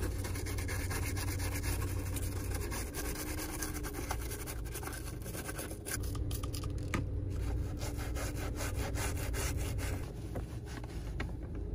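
Rapid back-and-forth scrubbing of toothbrush bristles on the plastic gear-selector console of a car, over a steady low hum.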